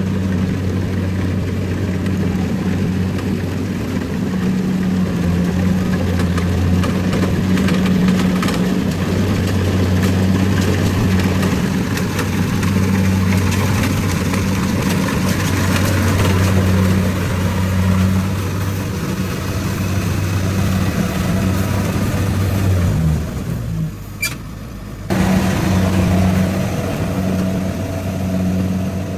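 Rice harvester engine running steadily with a low hum and machinery noise over it. The sound drops away abruptly for about two seconds near the end, then returns.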